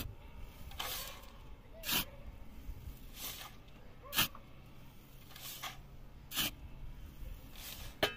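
Rhythmic scraping strokes, about one a second, alternating a softer, longer stroke with a sharper, shorter one.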